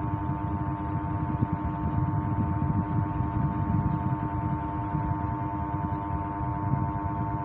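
Electric fan motor running through a homemade AC speed controller, giving a steady electrical hum of several held tones over a low rumble of air. The builder puts the hum down to the controller being built without the 500 potentiometer and 10 resistor that would avoid it.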